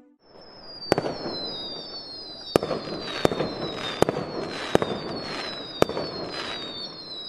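Fireworks sound effect: several whistling rockets whose whistles fall slowly in pitch and overlap, with six sharp bangs about a second apart and crackling in between.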